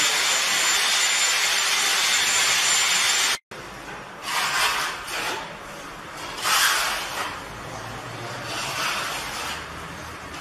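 A steel notched trowel scraping and combing tile adhesive over a floor, in four swishing strokes about two seconds apart. Before that, a steady loud hiss with a thin high tone fills the first three seconds or so and cuts off abruptly.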